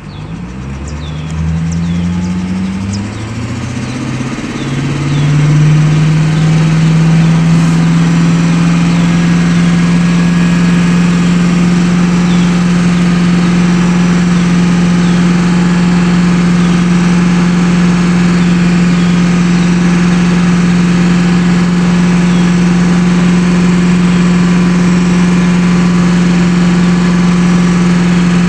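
BMW engine starting up, its pitch stepping up and down for the first few seconds before settling into a steady idle.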